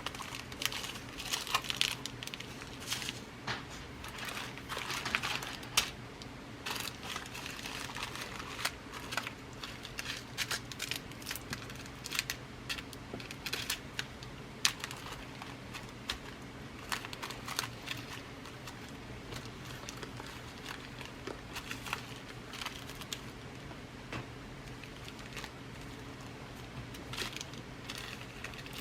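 Glass seed beads in their packets rustling and crinkling as they are rummaged through and handled. The rustles come in irregular bursts with sharp clicks, over a faint steady low hum.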